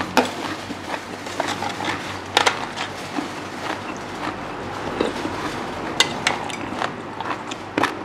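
Close-miked eating sounds: chewing and mouth noises with sharp irregular clicks and crunches, and a metal spoon tapping and scraping a metal tray of spicy seafood papaya salad with rice noodles.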